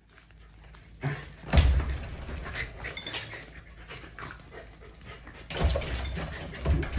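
Excited corgi panting as it jumps up on its hind legs, its paws scuffing and thumping on a tile floor. There is a sudden thump about a second and a half in, and the scuffling gets louder near the end.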